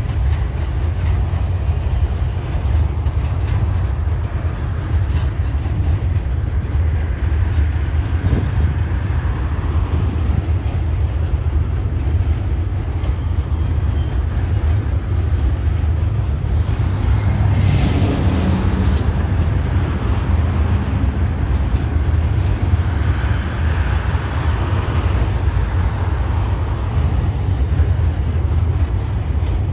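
Loaded log wagons of a freight train rolling steadily across an elevated rail bridge: a continuous low rumble with wheel clatter. A brief louder swell comes a little past halfway.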